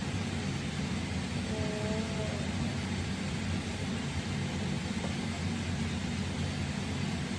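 Steady low mechanical rumble with a hiss above it, and a faint brief two-note tone about two seconds in.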